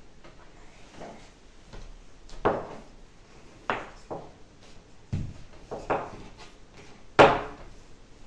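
Wooden rolling pin knocking against a wooden pastry board while small rounds of dough are rolled out: several irregular wooden knocks, the loudest about seven seconds in.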